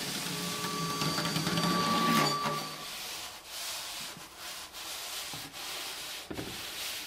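Objects rubbed and scraped against a stringed instrument laid flat, in free improvisation: a steady rasping scrape with faint held tones under it for the first three seconds, then uneven rubbing strokes with short breaks.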